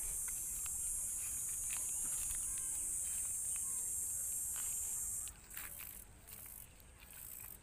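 Steady high-pitched chirring of insects, which cuts off suddenly about five seconds in; faint light clicks follow.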